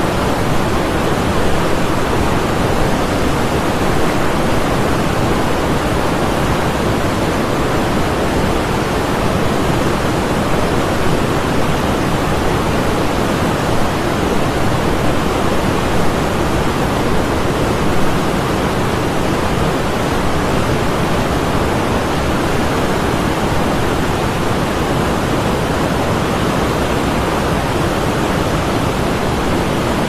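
River water flowing in a steady, unbroken rush.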